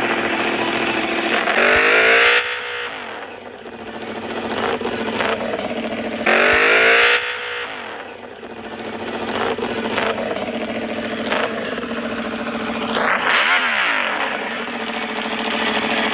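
Large motorcycle engine running loud, surging up three times, each surge dropping away in pitch.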